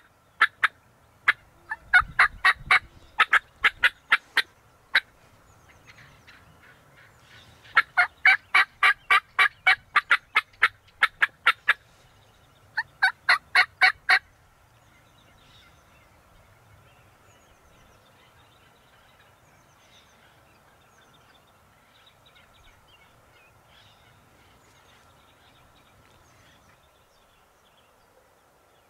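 Turkey yelping: several loud runs of sharp, evenly spaced notes, about four or five a second, stopping about 14 seconds in. After that only faint small-bird chirps remain.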